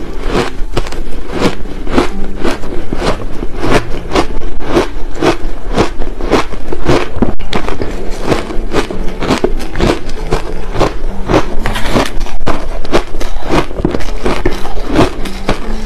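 Close-miked chewing of a mouthful of crushed ice: a steady run of crisp crunches, about four a second.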